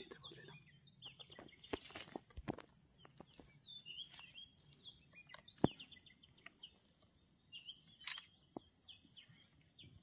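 Parakeets pecking at a sunflower head and cracking the seeds: a scattered run of short sharp clicks, one louder about halfway through. Short chirps from birds and a steady high insect buzz behind them.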